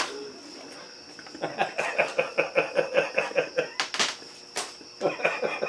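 Hearty laughter: a fast run of 'ha-ha' pulses, about six a second, starting about a second and a half in, then a shorter run near the end. Two sharp taps come in between.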